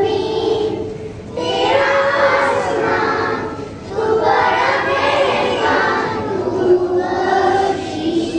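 A group of schoolchildren singing a morning prayer in unison, in phrases with short pauses for breath about a second and about four seconds in.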